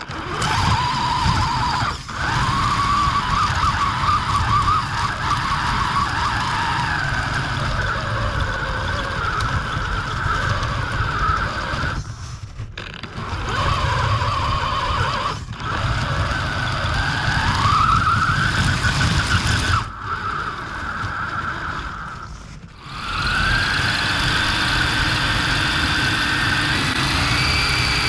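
Axial Capra RC crawler's electric motor and gear drivetrain whining under throttle, the pitch rising and falling as it speeds up and slows, over rumbling noise from the truck moving on snow. The whine drops out briefly several times as the throttle is let off.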